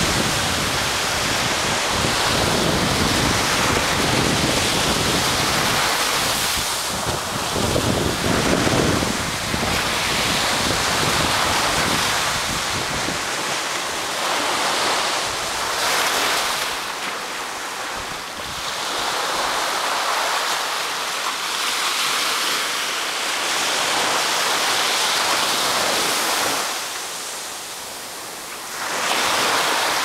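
Small Pacific waves breaking at the shore and washing up a sandy beach, a steady surf hiss that swells in several surges. Wind rumbles on the microphone for roughly the first half.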